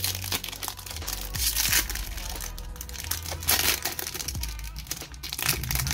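Foil Pokémon booster pack wrapper crinkling as it is opened by hand, a continuous run of crackly rustles.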